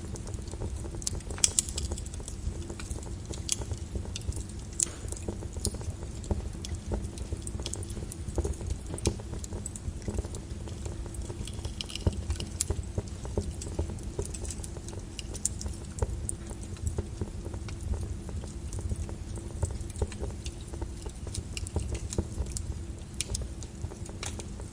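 Wood fire burning in a fireplace: a steady low rumble with irregular crackles and pops, a sharper pop about a second and a half in.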